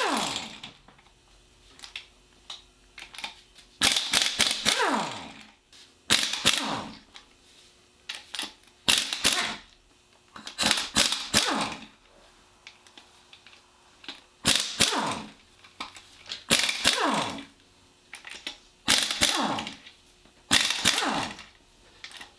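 Socket ratchet wrench working the main bearing cap bolts loose on a Ford 351M block: about ten quick strokes roughly every two seconds, each a run of clicks that slows and falls in pitch as the stroke ends.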